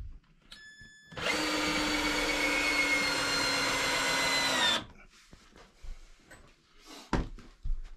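Cordless drill driving a screw into rough-cut lumber of a cabinet frame, running steadily for about three and a half seconds. Its pitch sags slightly near the end, then it stops.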